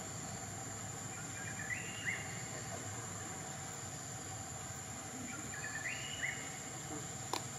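Forest ambience: a steady hiss with a constant high-pitched whine, broken twice by a short chirping call that rises in steps, about two seconds and six seconds in. A sharp click sounds near the end.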